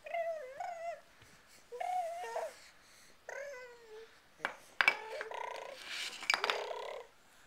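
A baby babbling in several short sing-song cries, each rising and falling. About halfway through come a few sharp clacks of hard plastic stacking cups, followed by a rougher, buzzy vocal stretch.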